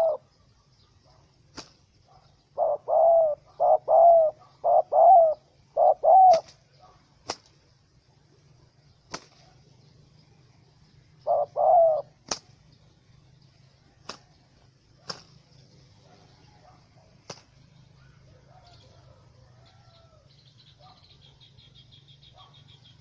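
Spotted dove cooing: a run of low coos about three to six seconds in and another pair near twelve seconds, with single sharp clicks or knocks scattered between them.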